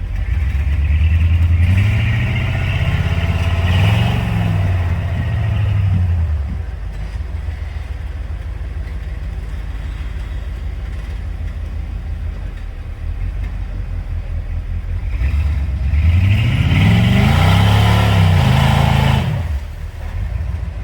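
Off-road vehicle engine revving in two bursts as it climbs on the trail, with its pitch rising and falling and a steadier low running sound between them. The second burst drops off suddenly near the end.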